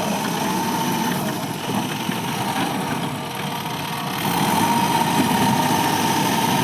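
Diesel engine of a Mahindra backhoe loader running, with a thin steady whine over the engine noise; the engine gets louder about four seconds in.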